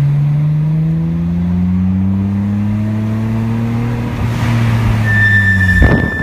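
Car running with its engine note slowly rising, then about five seconds in a high, steady squeal from the KSport aftermarket brakes starts as the car brakes, with a loud rush of noise near the end.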